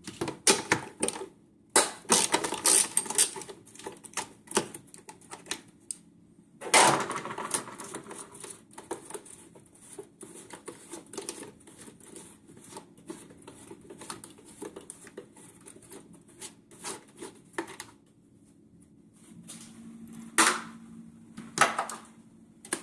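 Socket ratchet clicking in short runs as a bolt is worked loose, with scattered knocks and clatter of metal tools; the loudest knock comes about seven seconds in.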